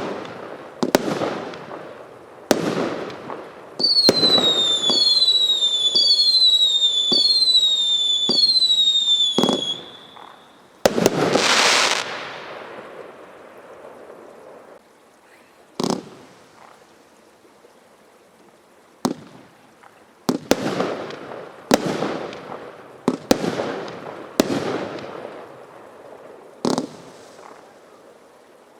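Consumer firework barrage from Standard Fireworks' Daredevil barrage kit going off: a string of sharp bangs, each trailing off in crackle and echo. In the first third a run of about five whistles, each falling in pitch, repeats in quick succession, followed by a loud hissing burst, and then more bangs at irregular spacing.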